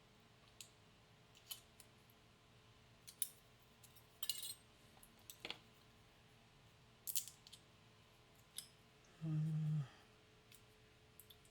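Light metallic clicks and clinks from a padlock and small lock tools being handled, with a short clatter about four seconds in and a brief low buzz about nine seconds in.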